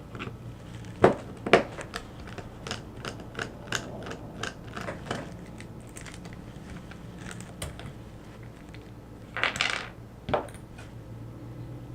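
Small sharp metallic clicks and clinks at irregular intervals as a Master Lock 6835 padlock is handled and taken apart, its parts and tools tapping together and against a hard surface. The loudest clicks come about a second in, with a brief louder noise near the end, over a faint steady low hum.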